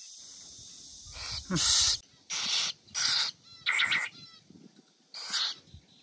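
Juvenile Asian koel giving short, harsh, hissing begging calls, four rasps in the second half. A hand rustles through the plants about a second and a half in, the loudest sound.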